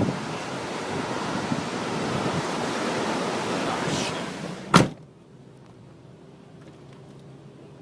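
Steady rushing noise of strong wind on the microphone while a tornado passes. It cuts off abruptly with a click almost five seconds in, leaving a quiet background with a faint low hum.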